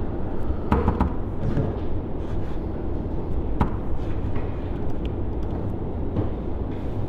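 Steady low room rumble with a few scattered short clicks from a computer mouse and keyboard.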